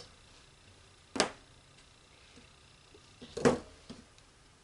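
Two sharp taps on a work surface about two seconds apart, the second the louder, with faint handling sounds in between, as soap-dough pieces and tools are handled.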